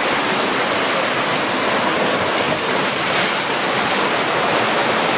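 Steady rushing of heavy Black Sea surf breaking against a rocky shore, with no single wave standing out.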